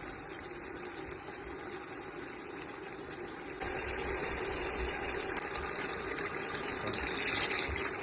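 Water running steadily, getting louder about three and a half seconds in.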